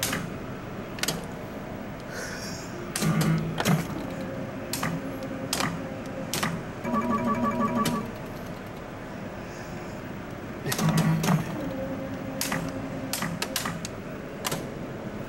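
Pachislot slot machine being played: sharp clicks of the start lever and reel-stop buttons about once a second, with short electronic beeps from the machine and a quick run of rapid beeping about halfway through.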